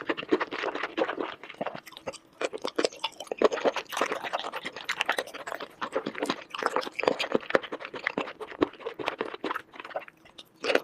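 Close-miked eating sounds: a person chewing food, a dense irregular run of quick clicks and smacks.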